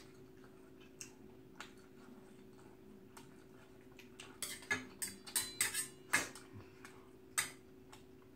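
Metal chopsticks and a spoon tapping and clinking against bowls: scattered light clicks, with a quick run of them about four to six seconds in and one more near the end, over a faint steady hum.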